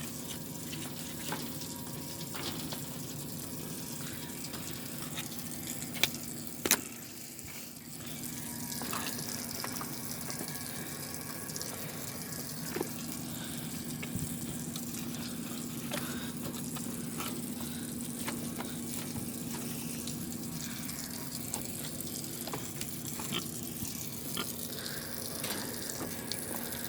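Steady rush of running water, with a faint steady hum beneath it. Two sharp knocks about six and seven seconds in.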